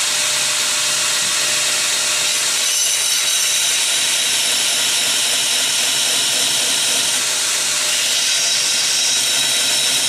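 2x72 belt grinder running steadily with a 60-grit belt over the flat platen, a titanium handle scale held against the belt and ground down.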